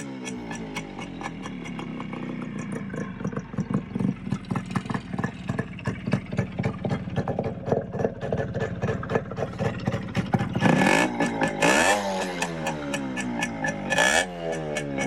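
Modified Yamaha RX100's two-stroke single-cylinder engine idling with a fast, uneven beat, then blipped three times near the end, each rev rising quickly and dropping back.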